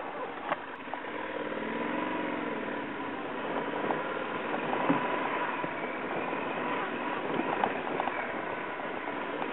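Adventure motorcycle engine running at low speed down a rocky track, its pitch dipping and rising early on, with scattered knocks as the bike jolts over stones.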